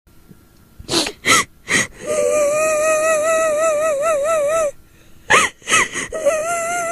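A woman's voice weeping in the manner of a kuntilanak: three sharp gasping sobs, then a long high quavering wail held for a few seconds. Three more gasps follow, and the wail starts again near the end.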